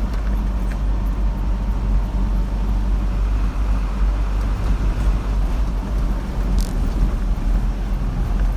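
Car driving along a road: a steady low rumble of engine and tyre noise, with a brief click about six and a half seconds in.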